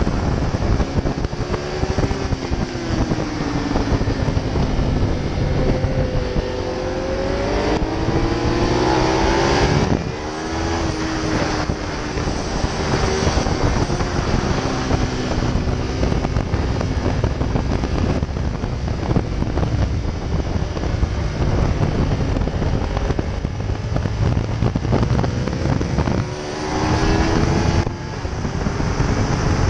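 Ducati Multistrada's V-twin engine accelerating hard at high speed, its pitch climbing through the revs and dropping at gear changes about ten seconds in and again near the end. Heavy wind rush buffets the helmet-mounted microphone.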